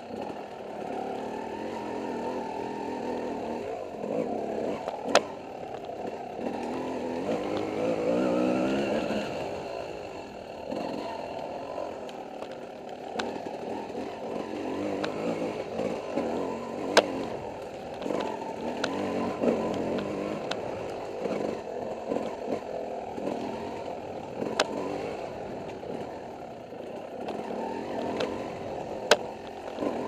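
Dirt bike engine revving up and down as the bike is ridden along a wooded trail, heard from the rider's helmet camera, with a sharp rise in revs about eight seconds in. Four sharp knocks stand out above the engine.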